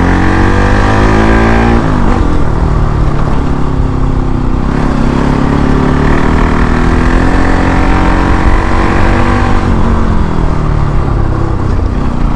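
Bajaj Pulsar NS200's single-cylinder engine on its stock exhaust under hard acceleration: the pitch climbs for about two seconds, drops sharply at an upshift, then climbs again and holds before falling away about ten seconds in.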